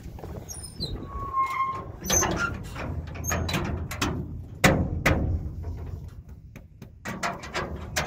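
Knocks and clanks inside a metal horse trailer holding two tied horses as they shift about, the loudest knock a little past the middle. A few high chirps and a short squeak come about a second in.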